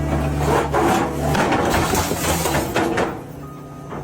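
A heavy machine's low, steady running hum, then irregular scraping, creaking and knocking; the hum fades after about a second and a half, and it gets quieter near the end.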